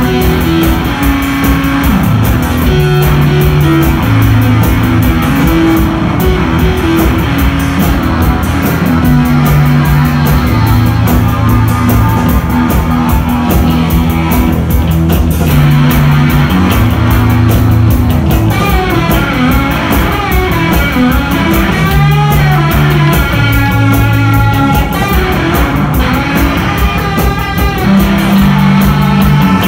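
A live rock band playing at full volume: distorted electric guitar, bass guitar and drum kit.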